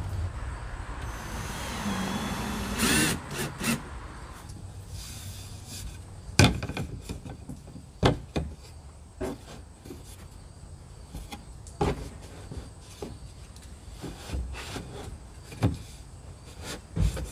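A plywood board scraped and slid into place against a plastic playhouse wall, then a series of sharp knocks and taps as the board is handled and fastened, over a low rumble of distant traffic.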